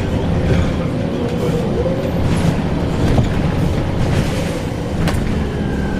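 Scania L94UB Wright Axcess Floline single-decker bus running, with a steady low engine and road rumble and a few short rattles and knocks.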